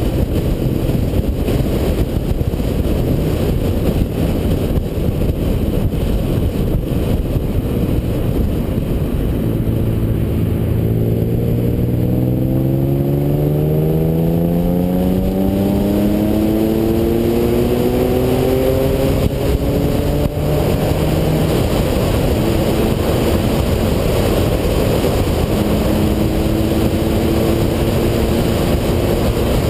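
Car engine heard under heavy wind and road noise while driving. About a third of the way in, its note climbs steadily for some ten seconds as the car accelerates, then it holds a steady pitch.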